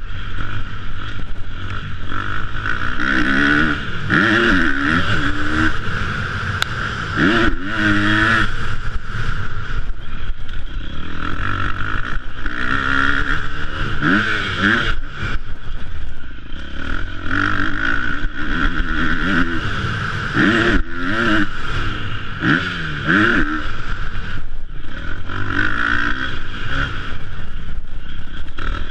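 Motocross bike engine revving hard and rising in pitch again and again as it pulls through the gears, with the throttle shut off briefly several times, over a steady rush of wind noise.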